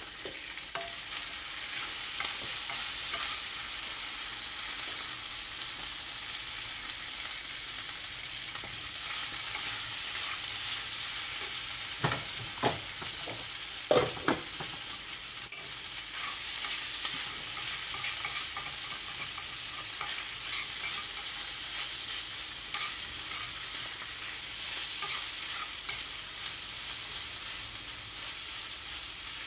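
Food sizzling steadily in a frying pan over a gas burner while being stirred with a utensil, with a few sharp clinks around the middle as a pot lid is handled.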